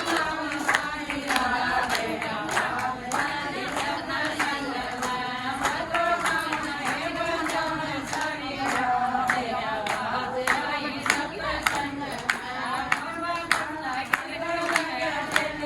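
A group singing a Haryanvi bhajan together in unison, with regular hand-clapping keeping the beat.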